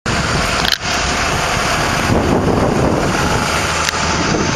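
Combine harvester running steadily during soybean harvest: a loud, even mechanical noise, with a brief dip just under a second in.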